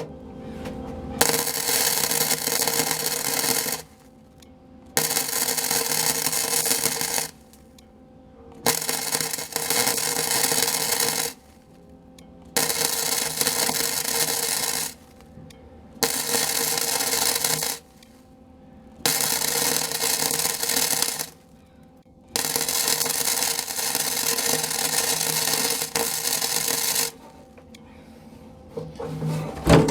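Electric welder laying short weld beads one after another, a steady crackle lasting a few seconds each time, seven runs in all with brief pauses between: a small steel patch panel being stitch-welded into a truck cab floor after tacking.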